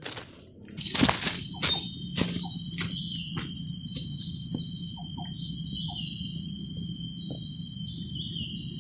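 Loud, steady high-pitched buzz of a forest insect chorus, starting abruptly about a second in, with a second insect call pulsing at an even rate underneath. A few sharp clicks or snaps sound in the first few seconds.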